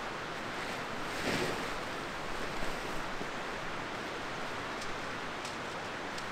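Steady rushing of a flowing valley stream, with a brief louder swell about a second in.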